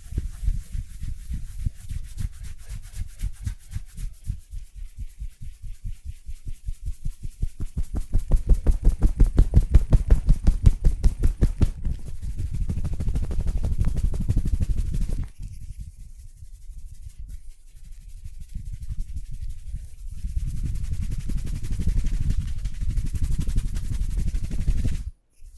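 Massage percussion: hands rapidly striking a person's body in an even rhythm, like tapotement or hacking. The strikes speed up and are loudest from about eight to twelve seconds in. There is a short lull near fifteen seconds, then a denser run of strikes.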